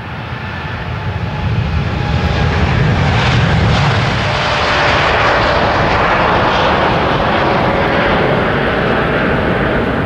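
Boeing 787 Dreamliner's GEnx-1B turbofan engines at takeoff thrust as the jet lifts off and climbs away: a loud jet noise that builds over the first two seconds, then holds steady.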